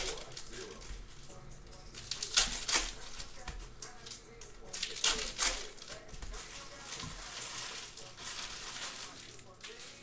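Foil wrappers of Panini Brilliance basketball card packs crinkling as packs are torn open, with cards shuffled by hand; several sharp crackling bursts, two close pairs about two and a half and five seconds in.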